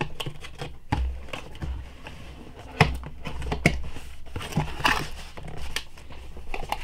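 Cardboard box being opened by hand: the tuck flap is pulled free and the lid flaps are folded back, with rustling and several sharp cardboard taps and snaps.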